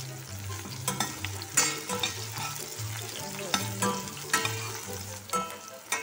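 Onion, garlic and tomato wedges sizzling in hot oil in a stainless steel pot while being stirred, with a scatter of sharp clicks and knocks of the utensil against the pot. A low bass line of background music runs underneath.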